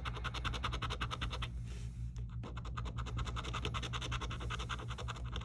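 Scratch-off lottery ticket being scraped in rapid back-and-forth strokes to rub off its coating, with a brief pause a little over two seconds in.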